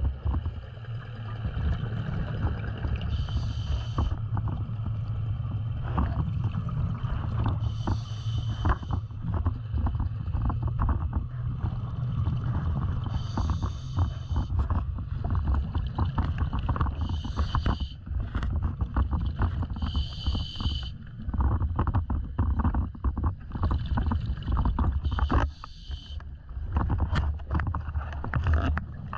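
Scuba regulator breathing underwater: a short hissing inhale every four to five seconds, over a constant low rumble and crackle of exhaled bubbles and moving water.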